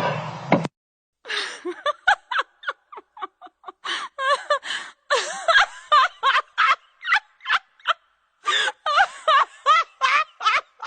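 High-pitched cackling laughter in quick, short bursts, a few per second, with brief breaks about a second in and about eight seconds in. It is a comic laugh sound effect.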